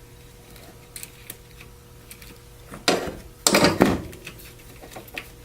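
Small plastic connector parts being handled and set down on a workbench: a few light clicks, then two louder clattering bursts about three seconds in, and a few more ticks near the end.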